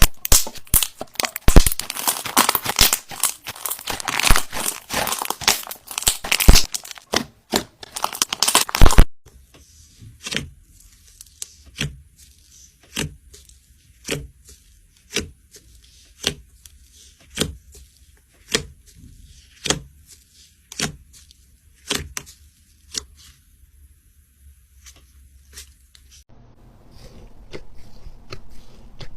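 Slime being squeezed and worked by hand: dense crackling and crunching for about the first nine seconds, then single sharp pops about once a second, then a softer, busier squishing in the last few seconds.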